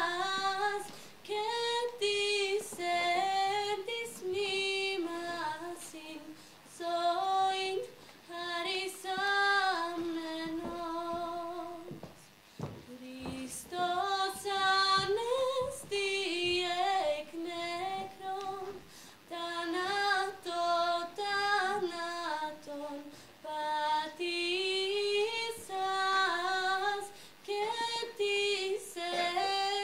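A young woman singing a slow solo melody, unaccompanied, in short phrases with brief breaks between them.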